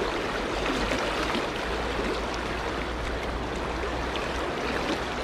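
Fast, shallow river riffle rushing steadily over stones, with a low steady rumble underneath.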